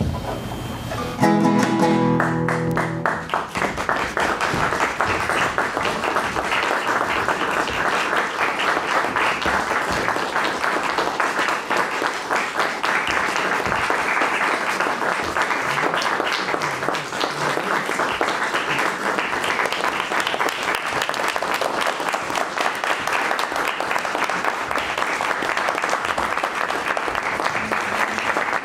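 Quiet room tone, then about a second in a single strummed acoustic guitar chord rings out, followed by sustained audience applause that continues steadily.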